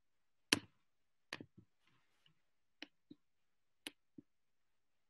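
Computer mouse clicks: faint, sharp clicks, mostly in quick pairs, at uneven gaps of about a second.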